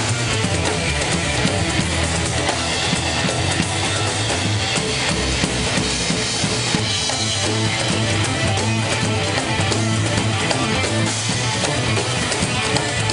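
Live rock-funk band playing: electric guitar over electric bass, a drum kit and hand percussion including congas, with a steady driving beat.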